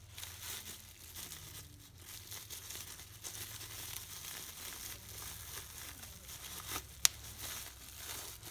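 Packaging being crinkled and torn open while a new replacement carburetor is unboxed, with one sharp click about seven seconds in.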